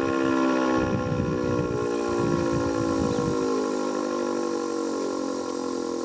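ASC T-112 outdoor warning siren winding down at the end of a full alert, its wail sliding slowly and steadily lower in pitch as it coasts. A low rumble runs under it in the first half.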